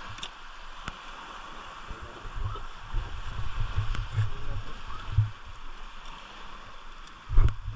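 A steady water-like hiss, like surf or running water, with soft low bumps and a few small clicks as the catch is handled through the middle, and one loud thump near the end.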